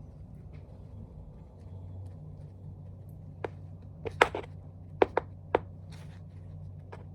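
Tap shoes' metal taps striking a hard floor: a few quiet seconds with faint shuffling, then about six sharp clicks in the second half, some in quick pairs. A low steady hum runs underneath.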